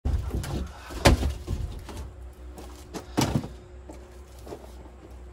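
A large sheet panel being handled against a wooden wall: knocks and scrapes, with two loud knocks about a second in and about three seconds in.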